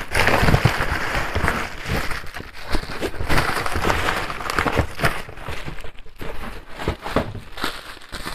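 Plastic bubble wrap rustling and crinkling with irregular crackles as it is handled and pulled out of a box.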